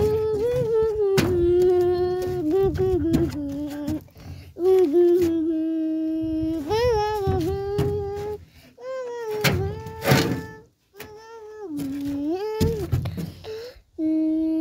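A child's voice humming wordlessly: long held notes joined by slides up and down, broken by short pauses. A few sharp knocks sound over the humming.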